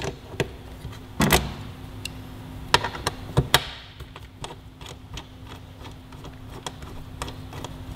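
A 5 mm T-handle hex wrench backing out the fasteners in a motorcycle's plastic tail section: scattered small metallic clicks and taps, the loudest about a second in, over a faint steady hum.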